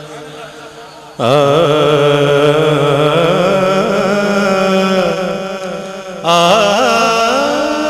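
A man singing a naat, drawing out long ornamented phrases with wavering, sliding notes and held tones. He starts a new phrase about a second in and another near the end.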